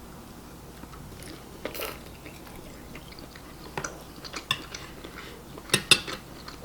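Close-up eating sounds: chewing with wet mouth smacks and a few sharp clicks, the loudest two close together near the end.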